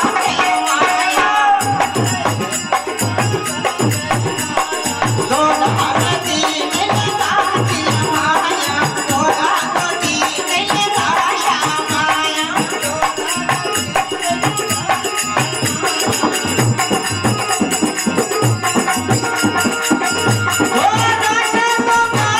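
Devotional bhajan sung live by a man into a microphone, with harmonium accompaniment. About a second and a half in, a steady low drum beat comes in alongside.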